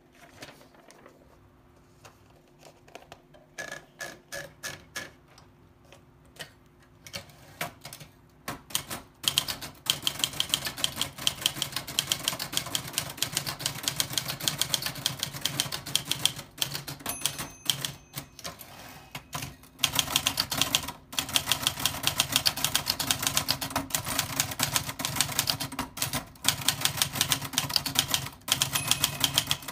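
Old typewriter being typed on: a few scattered keystrokes at first, then fast, continuous key strikes from about nine seconds in, with only brief pauses.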